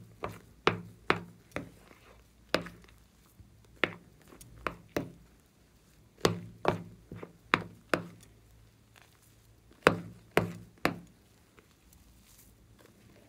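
Sharp clicks and taps from fluffy foam slime being stirred and folded with a plastic utensil in a glass bowl, coming in quick runs of about two or three a second with pauses between. They die away about two seconds before the end.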